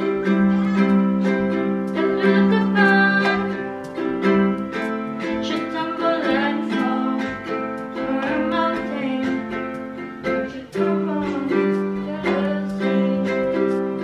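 Music with plucked ukulele strings, repeated notes over a held, wavering melody line, continuous apart from a short break near the end.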